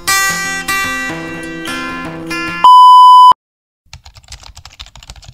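Strummed acoustic guitar music, cut off about two and a half seconds in by a loud, steady beep tone lasting under a second. After a short silence comes rapid clicking like typing on a keyboard.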